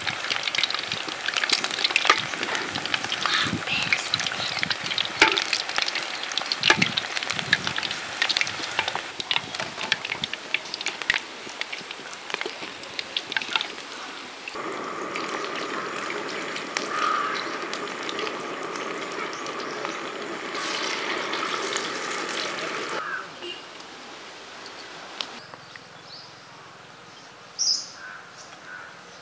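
Mutton vadas deep-frying in hot oil: dense sizzling and crackling with many sharp pops for roughly the first half, then a steadier hiss that fades out about three-quarters of the way through. A short high-pitched sound comes near the end.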